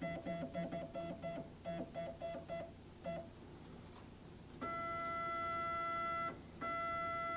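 Stepper motors of a STEPCRAFT desktop CNC jogging the machine: first a run of short, pitched buzzes from small step-by-step jog moves, then two longer steady whines in the second half as the axis moves continuously.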